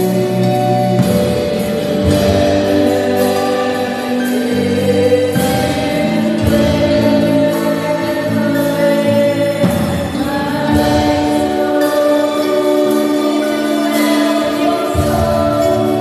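Gospel worship music: sustained sung notes over instrumental accompaniment, with chord changes every few seconds.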